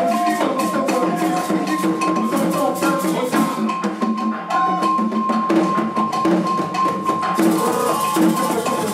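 Live Beninese popular music: men singing into microphones over a busy percussion rhythm with sharp wood-block-like clicks, with hand claps among the strikes.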